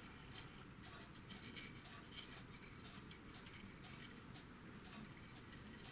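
Faint, irregular scratching of a fine paintbrush dabbing paint onto the corrugated roof of an N-scale model garage, over near-silent room tone.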